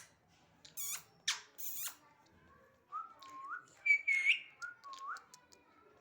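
Pet Indian parrot calling: a couple of short harsh screechy calls, then a run of short whistled notes that swoop upward in pitch, the loudest about four seconds in.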